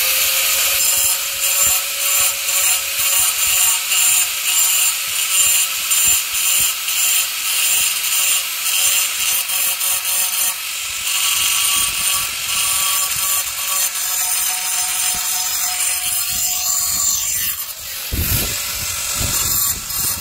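Angle grinder with a diamond cutting blade running against a granite stair step, roughening the surface to make it anti-slip. The grinding is loud and continuous, rising and falling as the blade is pressed and worked across the stone, with a few low thuds near the end.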